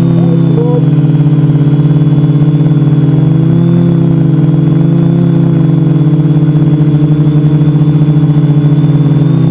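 Multicopter's electric motors and propellers buzzing loudly and steadily, heard from a camera mounted on the craft itself, with a slight shift in pitch about halfway through.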